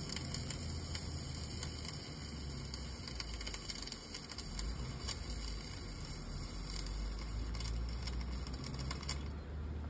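Electric arc welding on an excavator's steel track frame, building up worn metal: a steady frying crackle over a low hum, with the crackling cutting off suddenly about nine seconds in.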